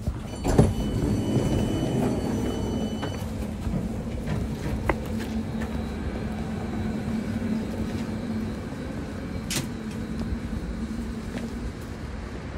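Electric commuter train at a station, a steady low hum that fades out after about ten seconds. A sharp thump comes about half a second in, and a high steady tone sounds for the first three seconds.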